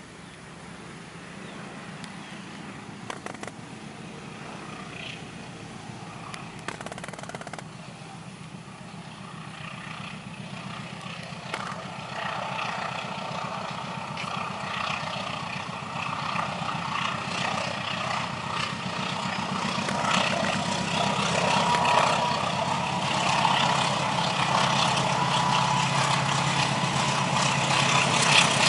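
CC 201 diesel-electric locomotive hauling a passenger train, its engine drone and the train's running noise growing steadily louder as it approaches.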